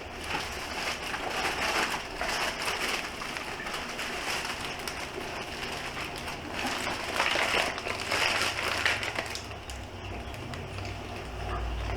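Plastic packaging crinkling and rustling as it is handled: irregular crackling with small clicks, louder in a few stretches.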